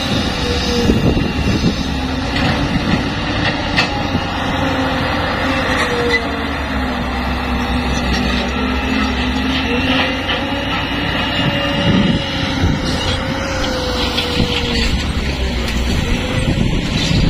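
Caterpillar 320C hydraulic excavator's diesel engine running under load as it digs and loads a dump truck: a steady low rumble with a whine that wavers up and down, and a few sharp knocks.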